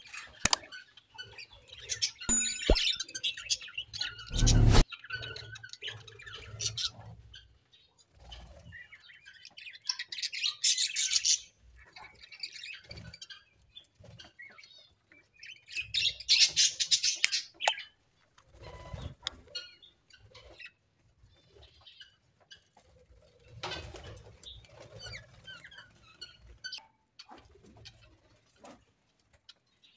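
Budgerigars chirping and warbling in irregular bursts, the loudest a few seconds in, around ten seconds and around sixteen seconds. A brief loud noise about four and a half seconds in.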